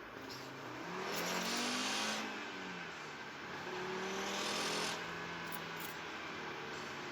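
Car interior noise heard from the passenger seat with the engine sound filtered out, recorded to catch an unidentified fault noise. A low hum rises and falls in pitch, and a louder rushing noise swells twice, about a second in and again about four seconds in.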